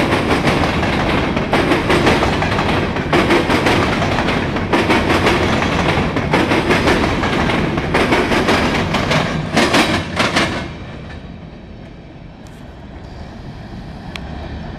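CSX freight grain train rolling past, its wheels clicking rhythmically over the rail joints. The last cars clear about ten seconds in, and the noise falls away to a low, fading rumble.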